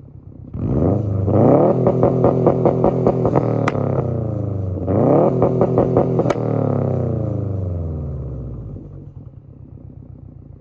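2020 Subaru WRX STI's turbocharged flat-four through a single-exit Tomei Expreme cat-back exhaust, revved twice while parked. Each rev climbs fast, holds high with a rapid stutter, ends in a sharp crack and falls away. Near the end it settles back to a steady deep idle rumble.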